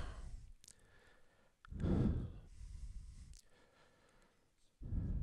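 A man breathing out twice into a close microphone, a longer breath about one and a half seconds in and a short one near the end, with a few faint clicks between.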